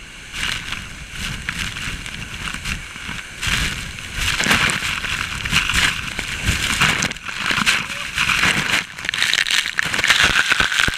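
Loud, steady rush of a tall waterfall pouring and splashing, with a crackling spatter of water throughout.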